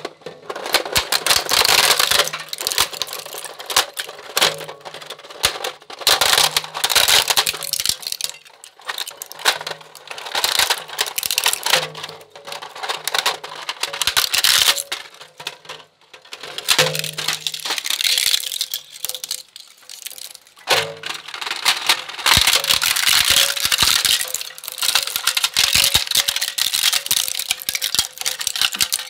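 Twin-shaft shredder crushing and tearing a hard plastic toy kitchen: rapid, dense cracking and snapping of the plastic between the cutter discs in spells of a few seconds, with short lulls between them, over a low motor hum.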